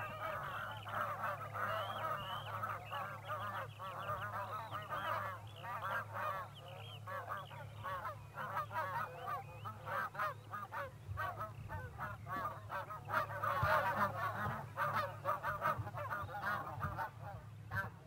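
A large flock of wild geese calling continuously, many short honking calls overlapping into one chorus, over a steady low hum.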